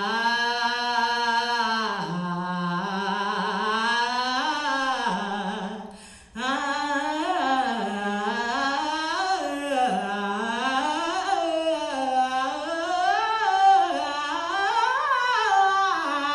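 A woman singing into a microphone in long held notes that slide slowly up and down. She breaks off briefly about six seconds in, then carries on with quicker rises and falls in pitch.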